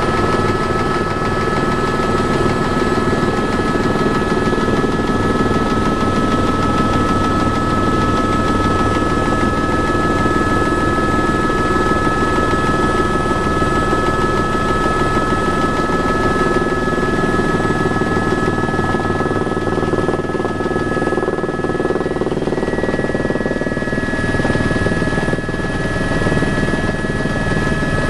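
Helicopter cabin noise from a tour helicopter in flight: the steady whine of the turbine over the beat of the main rotor. The pitch of the whine shifts slightly about three-quarters of the way through.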